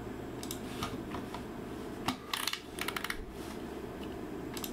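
Scattered clicks from a computer mouse and keyboard, with a quick run of clicks about two to three seconds in, over a steady low background hum.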